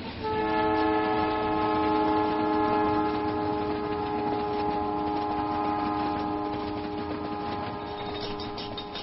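Locomotive horn sounding one long blast of several notes at once, held steady for about eight seconds and fading near the end, over the steady running noise of the train.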